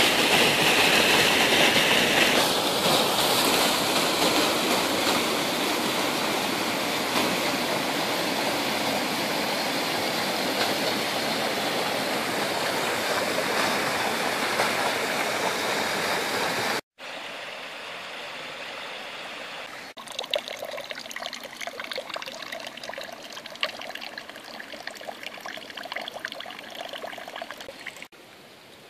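Swollen, muddy creek rushing over small cascades, a loud, steady flow. About two-thirds of the way through it cuts suddenly to a quieter stretch of flowing water with uneven splashing.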